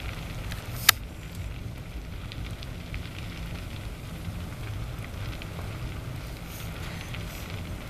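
A large wooden temple structure burning: a steady low rumble with scattered crackles and pops, and one loud sharp crack about a second in.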